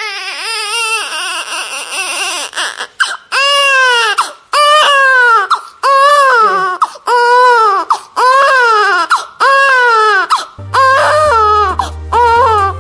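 A baby crying: a long run of high-pitched wails, each rising and falling in pitch, one after another with short breaths between. Near the end, music with a steady low bass comes in underneath the crying.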